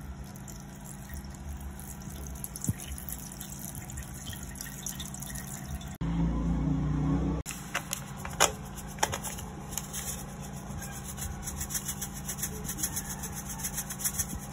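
Water trickling in a thin stream from a plastic sachet onto boiled hibiscus petals in a plastic sieve. Later, a couple of light clinks of a metal spoon against a pot.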